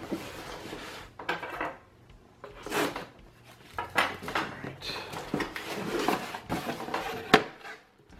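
Cardboard box being handled on a wooden tabletop: irregular scraping and rustling as it is turned over, set down and its flap opened, with one sharp knock near the end.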